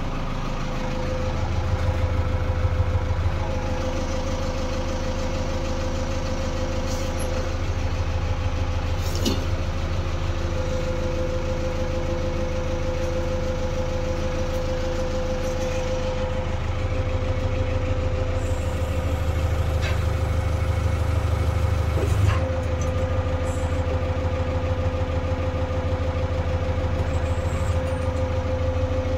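JCB 3DX backhoe loader's diesel engine idling steadily, heard from inside the cab: a constant low rumble with a steady whine above it, and a few faint clicks.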